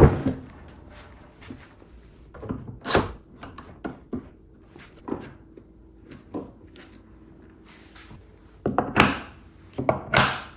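Knocks and thuds of hardwood parts being set down and fitted together as a workbench is reassembled. A sharp knock comes right at the start and lighter knocks follow through the middle. Near the end comes a run of clunks as metal bench dogs go into their holes.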